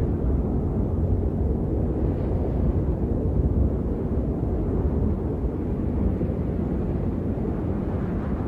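Strong wind buffeting the microphone: a steady, heavy low rumble with no let-up.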